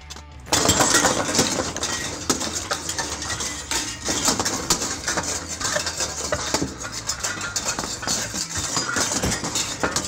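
Foley performance of metal being worked: a tangled bundle of metal wire shaken and scraped against a car door panel, giving a dense metallic clatter and jangling that starts suddenly about half a second in and keeps going.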